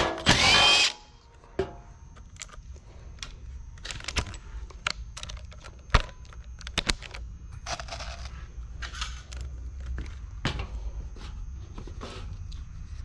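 Makita cordless impact driver running in one short burst of under a second at the start, with a rising whine, as it drives a screw into the wood frame. After it come scattered small clicks and knocks as screws, bits and the board are handled.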